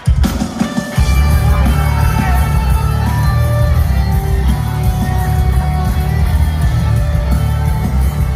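Live rock band playing loud through a venue PA: a hit at the start, then the full band comes in about a second in with heavy drums, bass and guitars and some singing.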